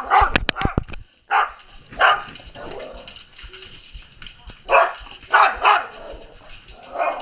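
A pet dog barking at her owner, about six short sharp barks spaced out unevenly; these are demanding barks for attention and play. A quick clatter of sharp knocks comes in the first second.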